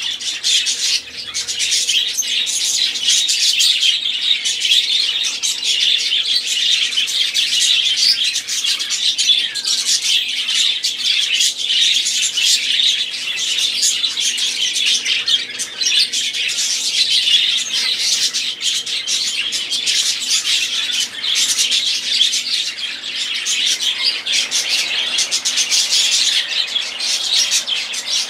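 Budgerigars chattering and warbling all at once: a dense, unbroken stream of quick, high chirping notes with no pauses.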